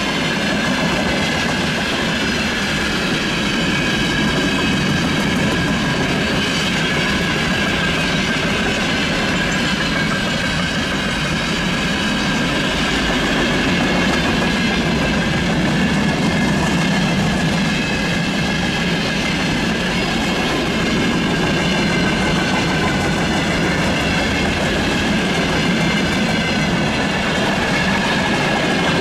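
Freight train rolling past: a steady rumble of wagon wheels on the rails with a high ringing note held over it.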